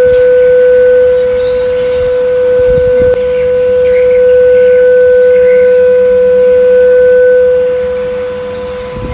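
Steady 500 Hz tone from a phone's frequency generator app, played through the phone speaker into the top of a pipe being raised out of water: a resonance-tube measurement of the speed of sound. The tone swells and dips a little in loudness, fades near the end and then cuts off.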